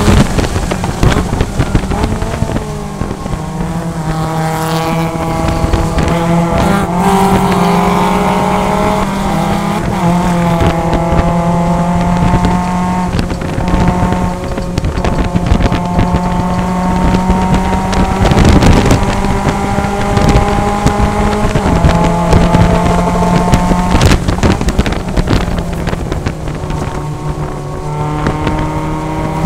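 Cockpit sound of a Mazda MX-5 Cup race car's four-cylinder engine running hard, with wind and road noise. The engine's pitch climbs under acceleration and jumps at each of several gear changes as the car brakes from about 115 mph and then drives on through the corners.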